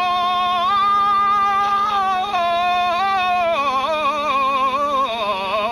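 A man singing a Spanish ballad unaccompanied, drawing one wordless vowel out into a long melisma. The held notes waver with a strong vibrato and the pitch steps down and back up, wavering faster in the second half.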